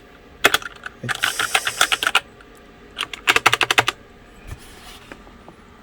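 Typing on a Logitech K845 mechanical keyboard with tactile brown switches: three quick runs of rapid key clicks, the middle one the longest, then the keys fall quiet.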